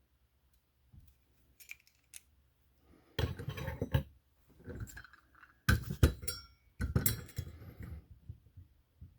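Small hard parts and tools handled on a work surface: three clusters of clinking and rattling, about three seconds in, near the middle and a second later, with faint ticks before them.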